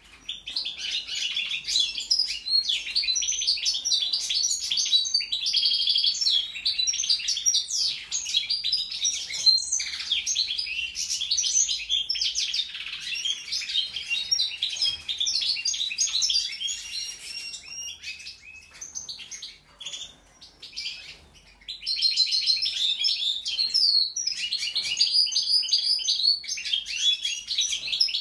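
European goldfinch singing a long, fast twittering song of quick chirps and trills, dropping away for about four seconds past the middle before starting again.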